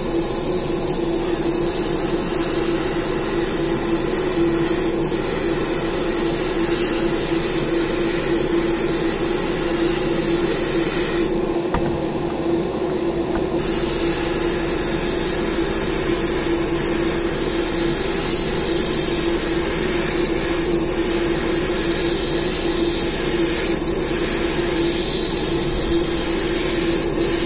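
Steady whir of a small electric motor with a constant hiss of air, from an airbrush painting setup. The hiss changes briefly about halfway through.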